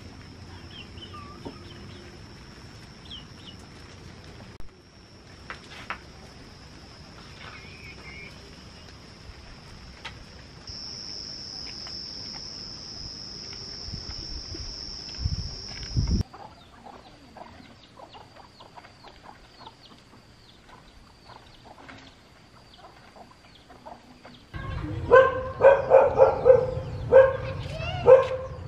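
Small dog barking in a quick run of sharp barks near the end, over a steady high-pitched drone and scattered light clicks.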